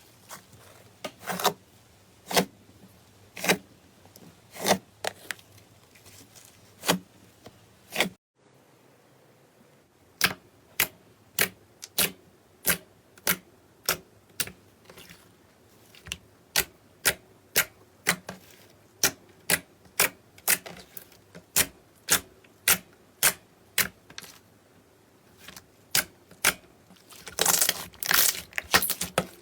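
Slime being pressed and worked by hand, making a string of sharp clicking pops. They come about one a second at first, then after a short break about two a second, with a denser crackling run near the end.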